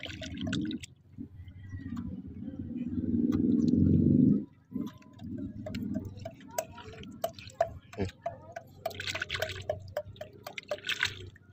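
A hand digging in wet tidal mud among rocks, making squelching and sharp wet clicks and crackles. A low rumble builds over the first few seconds and cuts off suddenly.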